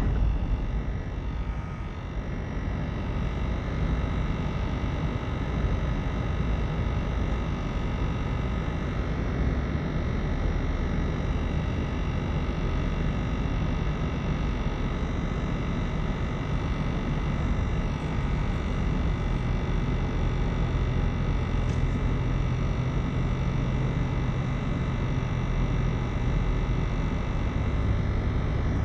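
Car driving along a smooth asphalt road, heard from inside the cabin: a steady hum of engine and tyre noise, its low note shifting a little about ten seconds in and again about twenty seconds in.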